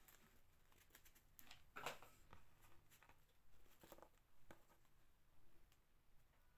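Near silence: room tone with a few faint, soft rustles and ticks of small craft pieces being handled and pressed into place by hand. The clearest is about two seconds in, with a couple more around four seconds.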